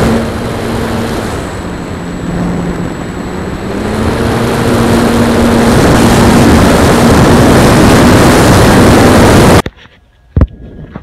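E-flite Apprentice RC trainer plane in flight, heard through its onboard camera's microphone: loud rushing wind over the airframe with the electric motor and propeller droning underneath. The drone rises a little in pitch and grows louder about four seconds in. It cuts off suddenly near the end, leaving quiet with one brief knock.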